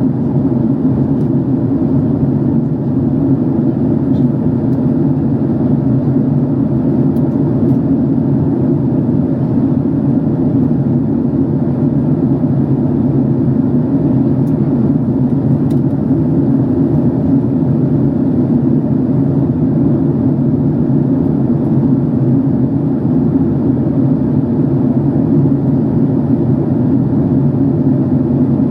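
Steady, even drone of a Boeing 767-300 airliner's engines and airflow heard from inside the passenger cabin as the jet descends towards landing.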